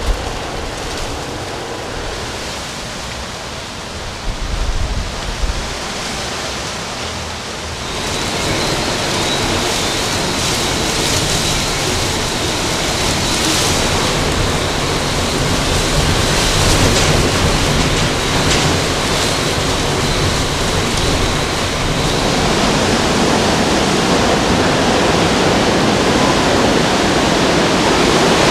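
Hurricane wind with surf and rain: a steady rush of noise, with wind thumping on the microphone in the first few seconds. About eight seconds in it becomes louder and fuller.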